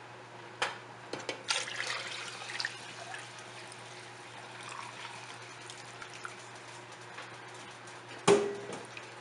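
Hot water poured from a jug into a large metal pot of haleem, splashing into the thin stew, loudest in the first few seconds. Near the end a single sharp knock with a brief ring is the loudest sound.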